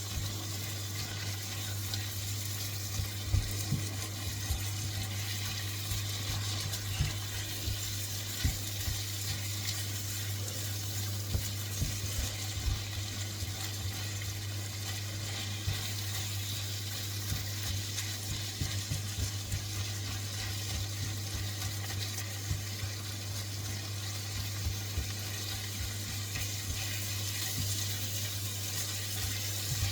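Vegetables and tomato purée frying in a wok: a steady sizzle, with scattered light knocks and a steady low hum underneath.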